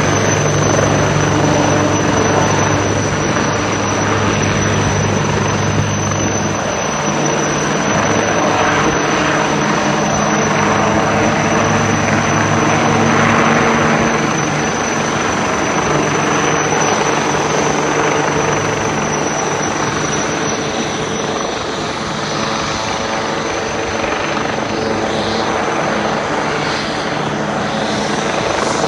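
HAL Light Combat Helicopter hovering low, its main rotor and twin Shakti turboshaft engines running steadily with a constant high turbine whine.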